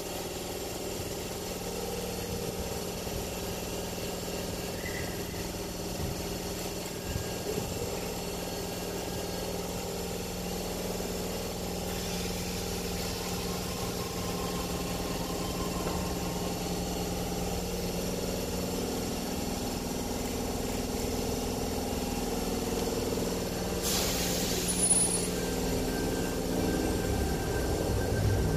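Sydney Trains Tangara electric train set standing at an underground platform, its onboard equipment humming steadily. A short hiss comes about 24 seconds in.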